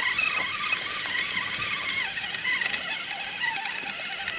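Baitcasting reel being cranked to bring in a hooked fish: a whirr from its gears that wavers up and down in pitch.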